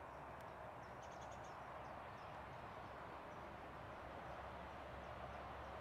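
Quiet outdoor ambience: a steady soft hiss of background noise, with a few faint, high bird chirps about a second in.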